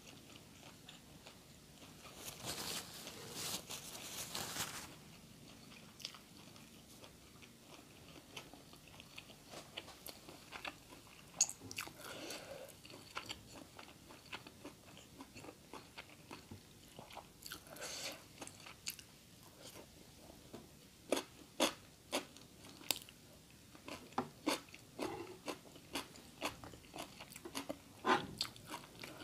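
A person biting and chewing food close to the microphone. There is a thick stretch of noisy chewing a couple of seconds in, then a run of sharp clicky bites and smacks that comes thicker and louder near the end.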